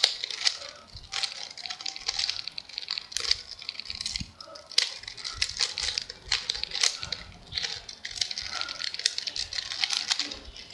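Plastic mirror cube (Mirror Blocks puzzle) being turned quickly in the hands to scramble it, its layers rattling with many sharp clicks.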